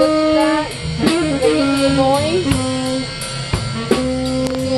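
Live band playing: an electric guitar bends and holds long notes over a drum kit.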